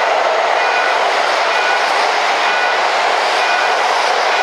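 Toei 10-300 series electric subway train running through an underground station at speed without stopping, a loud steady rush of wheels on rail with faint short high tones coming and going.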